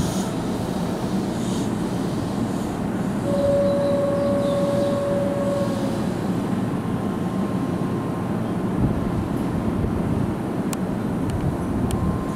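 Keihan electric train running at the station, a steady rumble of wheels on rails. A steady tone sounds for about two and a half seconds, starting about three seconds in, and a few sharp clicks come near the end.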